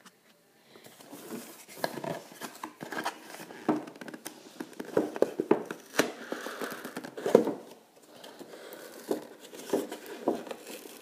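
Cardboard toy box being pushed in and torn open by hand: irregular crackling, tearing and crumpling of cardboard and packaging, starting about a second in.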